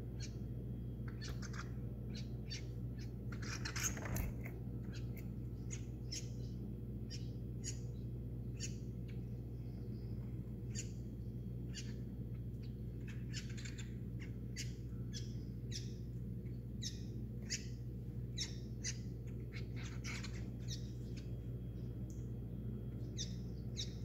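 Small birds chirping with many short, quick chirps while feeding on a window ledge, over a steady low hum. A brief louder noise comes about four seconds in.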